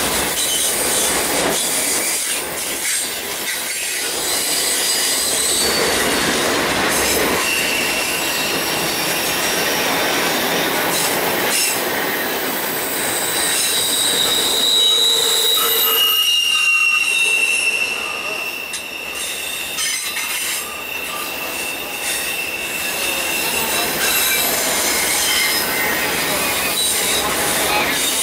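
Freight train of autorack cars rolling past on a curve: the wheels rumble and rattle on the rails, and the wheel flanges squeal in high, shrill tones that come and go, one held for several seconds in the second half.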